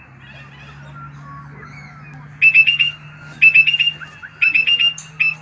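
High-pitched beeping that starts about halfway in: quick runs of about four short beeps at one steady pitch, repeating about once a second and very loud. A steady low hum runs underneath.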